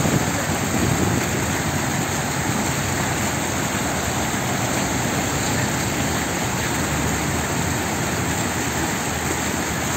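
Ornamental fountain channel: rows of water jets spouting and water pouring over a low step, a steady rushing splash.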